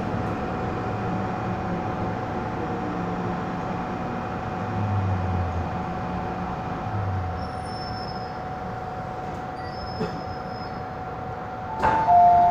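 Inside an MTR M-Train car: steady running rumble with a thin steady whine that dies away as the train comes to a stop. Near the end, a loud two-tone door chime starts, signalling the doors about to open.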